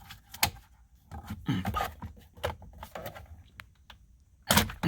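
Scattered clicks and knocks of plastic steering-column trim and parts being handled and pulled out by hand. The loudest knocks come near the end.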